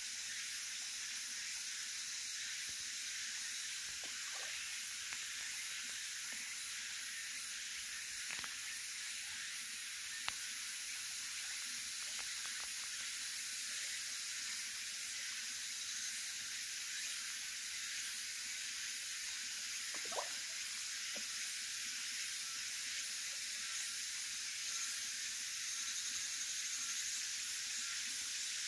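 Steady high hiss with a brief click about ten seconds in.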